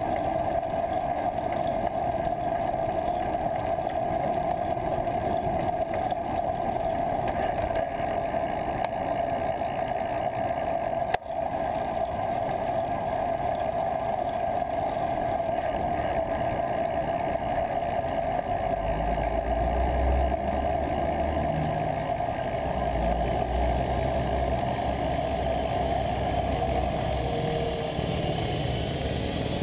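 Steady wind and road noise picked up by a bike-mounted GoPro Hero 2 while riding through city traffic, with a deep rumble coming and going in the last third.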